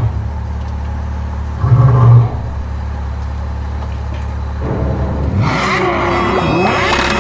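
Low, steady engine rumble of a monster truck, with a louder rev about two seconds in. Over the last couple of seconds, bubbling, splashing water sounds rise over it.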